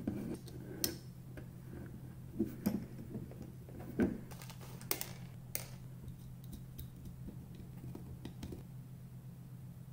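Light, scattered clicks and taps of a lithium-ion 18650 cell pack in plastic snap-together cell caps being handled and set down on a cutting mat, over a steady low hum.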